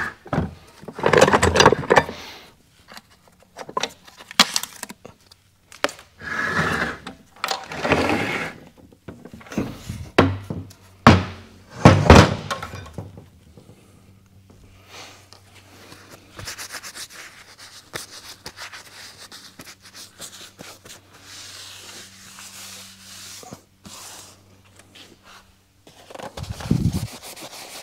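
Knocks, clatters and scraping of metal transmission parts and hand tools being handled during a teardown. The loudest knocks come in the first half, then quieter scraping, with one more knock near the end.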